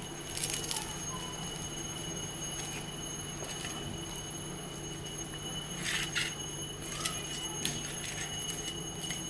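Soft crackle and crinkle of charred, fire-roasted taro leaves being picked apart by hand in a steel bowl, a few brief rustles near the start and about six seconds in. A steady hum and high whine run underneath.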